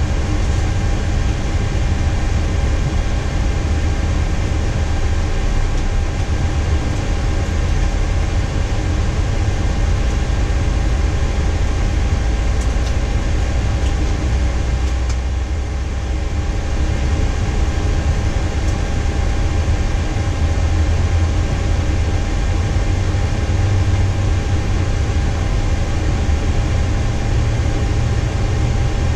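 Steady cockpit noise in a Boeing 737-800 on the ground: a low rumble with constant hums, from its CFM56 engine running after start together with the air-conditioning and avionics fans.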